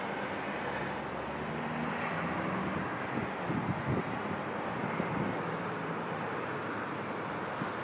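Steady hum of city traffic with a low engine drone, and a cluster of short, dull thumps about three to five seconds in from distant fireworks bursting.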